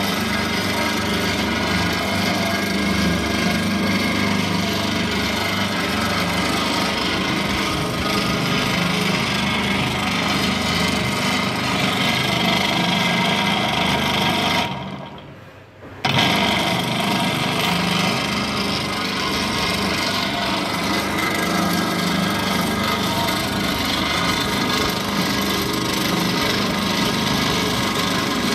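Coconut broom stick machine running steadily: its motor and red feed rollers turning with a continuous scraping rub from the coconut leaf midrib being drawn through the blade block. About halfway through the sound fades away for about a second, then comes back abruptly.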